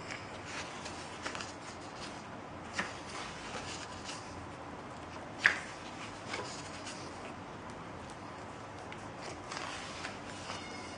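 Pages of a large glossy art book being handled and turned, paper rustling softly, with one sharp snap of a page about halfway through.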